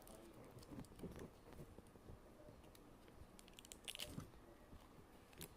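Faint crinkling and small squishy clicks from a homemade tissue-and-lotion squishy being squeezed in its wrapping, with a short cluster of crackles about four seconds in.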